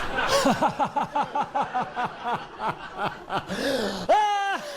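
A person laughing in a rapid run of short giggles, breaking into a high-pitched squeal near the end.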